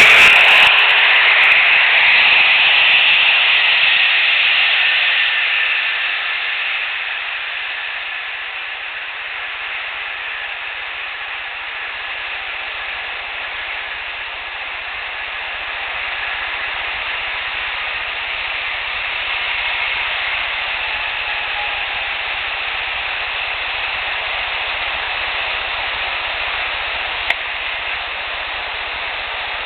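Tail end of a loud airplane passing overhead, its rushing noise fading away over the first several seconds into a steady background hiss of distant highway traffic. A single sharp click about 27 seconds in.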